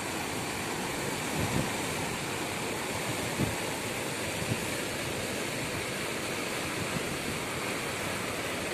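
River in flood rushing and churning, a steady, even rush of water with no letup, with a few faint low thumps along the way.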